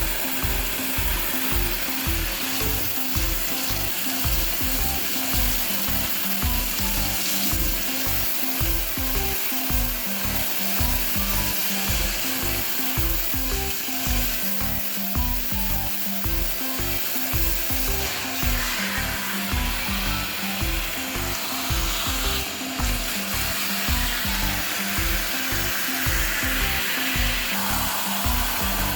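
Background music with a steady, even beat, laid over a constant hissing noise.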